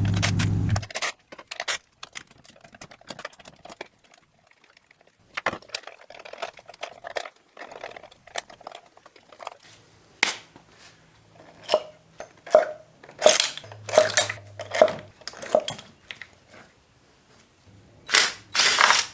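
BMW M50 straight-six engine running, then stopping about a second in. Irregular clicks, knocks and scrapes of hand tools follow as the engine's coil packs and spark plugs are worked on, with a louder clatter near the end.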